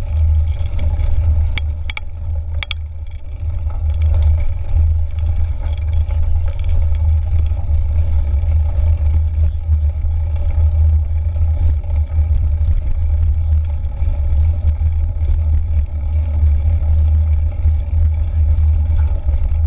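Wind buffeting the microphone of a handlebar-mounted camera on a mountain bike riding a dirt trail: a steady low rumble. A few sharp clicks of the bike rattling come about two seconds in.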